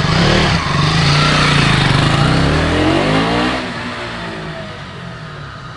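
BS6 KTM Duke 200's single-cylinder engine accelerating as the motorcycle is ridden past; about three seconds in the engine note drops in pitch and fades as the bike moves away.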